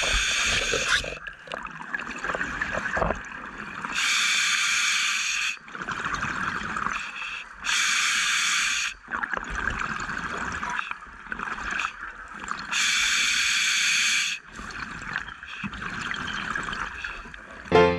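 Scuba diver breathing through a regulator underwater. There are four long hissing rushes of exhaled bubbles, about four seconds apart, with a softer hiss of inhalation through the regulator between them.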